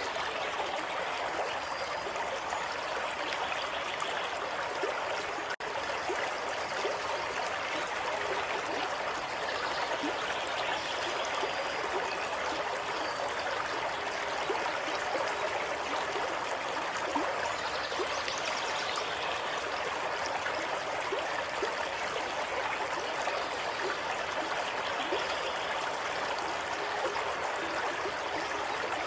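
Water of a small stream flowing steadily, an even rushing trickle with no pauses. The level dips briefly about five and a half seconds in.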